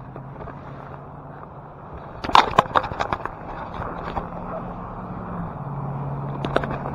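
Footsteps crunching on snow, starting about two seconds in as a run of sharp crunches, over the steady low hum of a vehicle engine running nearby.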